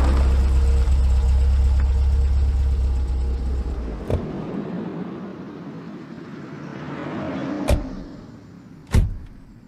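Car engine running with a low rumble, heard from inside the cabin, that stops suddenly about four seconds in just after a click. Then two sharp thuds about a second apart near the end.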